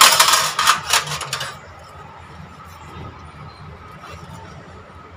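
Rapid clatter of sheet-metal computer case parts being handled: a quick run of clinks and knocks for about a second and a half, then only a steady low hum.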